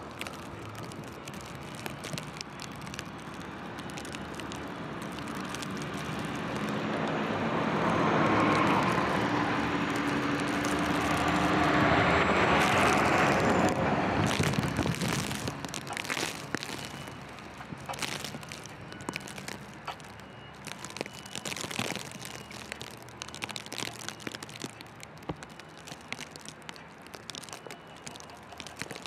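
A large truck drives past on a snow-covered street: its engine and tyres grow louder, peak about halfway through, and then fade away. Afterwards, footsteps crunch in snow.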